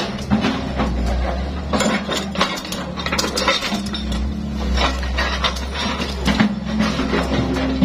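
Hydraulic excavator's diesel engine running steadily, with frequent sharp metallic clinks and knocks from the machine's steel bucket and tracks as it works.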